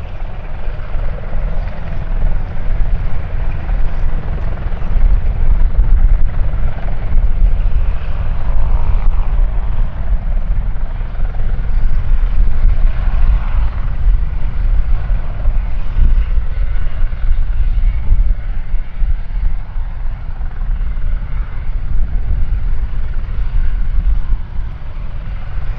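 Eurocopter EC120B Colibri helicopter running: a steady, loud rotor and turbine noise with a heavy low rumble that swells and eases slightly.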